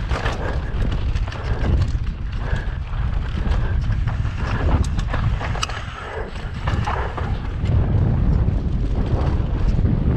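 Wind buffeting a helmet camera's microphone as a mountain bike descends a dirt trail at speed, with tyres on dirt and frequent sharp clicks and rattles from the bike over bumps.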